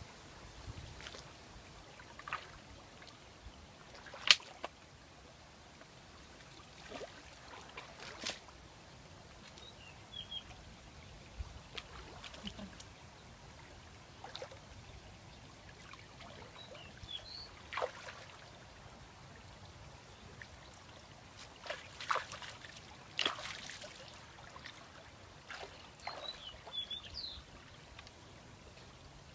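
Water splashing and sloshing as someone wades in shallow muddy water and handles branches, with scattered sharp splashes and knocks. The loudest comes about four seconds in.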